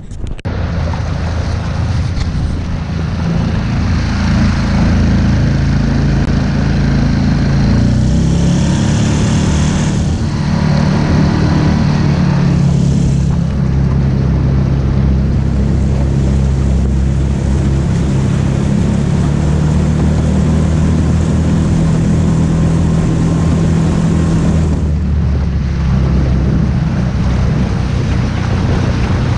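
Small boat's outboard motor running under way, its pitch stepping up about eight seconds in and then holding steady, with water rushing and splashing along the hull.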